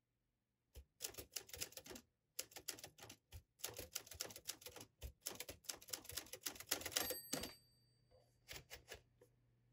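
Manual typewriter keys clacking in quick runs of strikes, with two short pauses. A high ringing tone sounds about seven seconds in, followed by a few last clacks.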